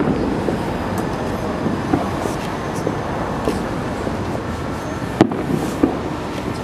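Aerial firework shells bursting: scattered smaller pops, then two sharp bangs about five seconds in, over steady background noise.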